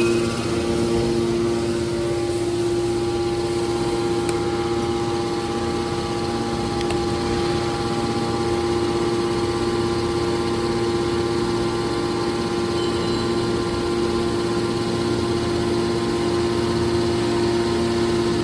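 Scrap metal baler running, a steady machine hum that holds one pitch throughout.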